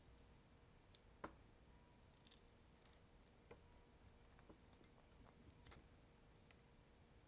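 Near silence broken by about ten faint, scattered clicks and snips of small pliers working at the wire leads of a vintage sewing machine motor's coil. The loudest click comes about a second and a quarter in.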